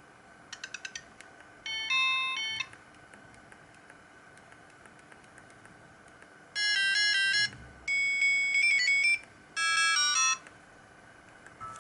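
Siemens CL50 mobile phone playing its built-in ringtones through its small speaker: buzzy electronic beep melodies. A few quick ticks come under a second in, then a short phrase about two seconds in. After a pause, three loud bursts of fast stepped beeps run from about six and a half to ten and a half seconds in, and the next tune starts right at the end.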